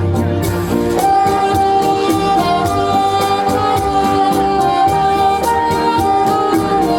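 Band music with a held melody line over a steady beat.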